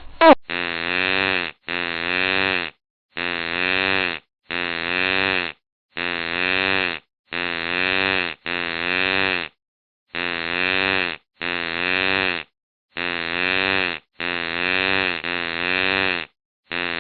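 A fart sound effect, the same one-second buzzing blast with a wavering pitch played over and over, about thirteen times, with silent gaps between.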